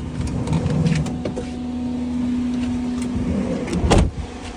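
Parking (no-idle) air conditioner's compressor and fan running with a steady hum, in its stock state before any noise reduction, fan on its lowest setting. Near the end a loud knock and a short rush of noise break in and the hum then sounds quieter.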